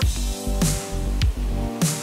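Background music for a trailer: held chords over a heavy bass line, with a sharp drum hit and a falling low thump about every 0.6 seconds.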